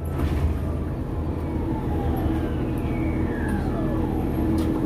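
Orion VII Next-Gen city bus running underway, a steady low engine and drivetrain hum heard from inside the bus, with a faint whine that falls in pitch over the second half as the bus slows toward the curb.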